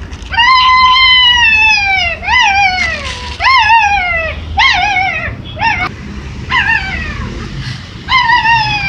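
A puppy whining loudly in high-pitched cries: one long cry that falls in pitch at its end, then a run of about seven shorter yelping cries, each rising and then falling.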